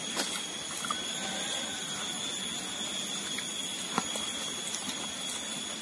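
A steady high-pitched insect drone from the surrounding forest over a soft background hiss, with one faint click about four seconds in.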